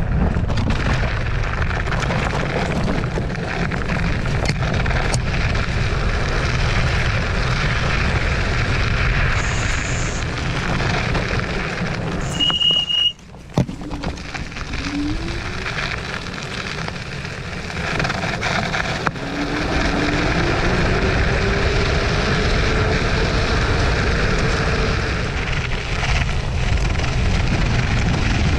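Wind buffeting the microphone and tyres rumbling over gravel as a Zero 10X electric scooter is ridden, with a faint rising whine from its hub motor as it picks up speed in the second half. The sound cuts out briefly near the middle.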